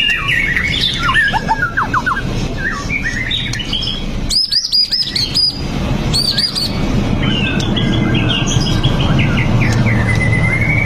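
White-rumped shama (murai batu) song: a varied run of whistled notes, quick sweeping phrases and rapid trills, ending in a long steady trill, over a constant low background rumble.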